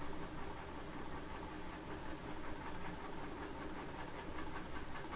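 Steady hum and hiss of the recording setup, with a run of quick, faint clicks from about two seconds in: a computer mouse being clicked and its scroll wheel turned.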